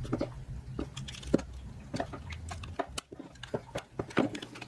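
Flat-blade screwdriver prying the plastic grille off a small portable speaker: irregular small clicks and scrapes of plastic on plastic and metal, with one sharper click about a second and a half in.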